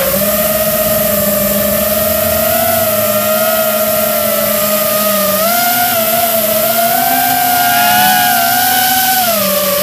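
Electric motor and propeller of the camera-carrying RC aircraft in flight, a steady whine that steps up in pitch about five and a half seconds in and drops again near the end as the throttle changes.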